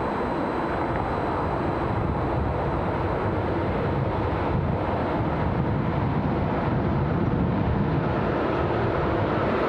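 ICE high-speed train approaching on the track, a steady rumbling noise that slowly grows louder.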